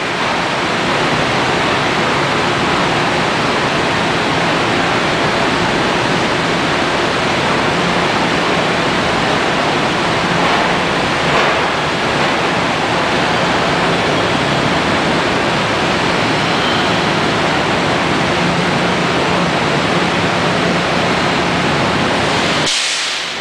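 Steady, even rushing noise with a faint low hum underneath, from machinery in an enclosed train shed where an electric commuter train stands idling; it cuts off suddenly near the end.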